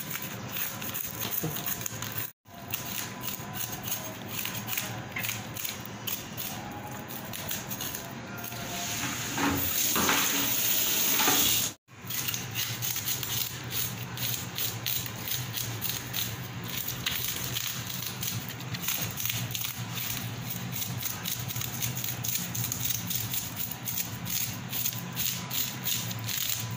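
Knife scraping the scales off a whole lapu-lapu (grouper) on a plastic cutting board, in quick repeated rasping strokes. A louder steady hiss builds for about two seconds near the middle.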